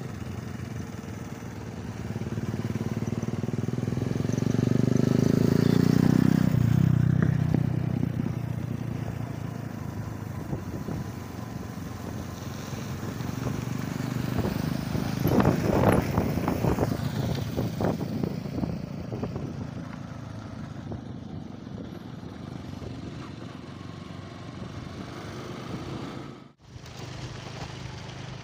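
Motorcycle engines running at road speed as several bikes ride together, with a swell in engine sound about four to six seconds in. The sound drops out briefly near the end.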